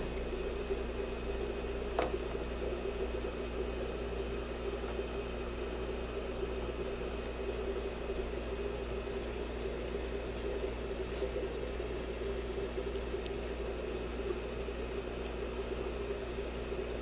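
Aquarium air pump humming steadily as it drives a sponge filter, with one sharp click about two seconds in.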